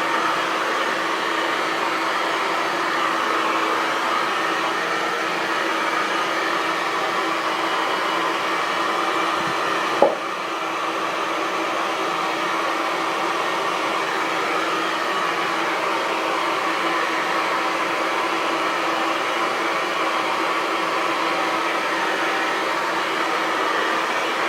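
Hair dryer running steadily, a constant whooshing blow of air over a motor hum. There is a single short click about ten seconds in.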